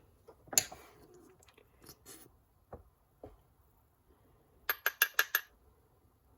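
Small metal parts of a clutch slave cylinder being handled: a few faint knocks, then a quick run of about six ringing metallic clinks about five seconds in.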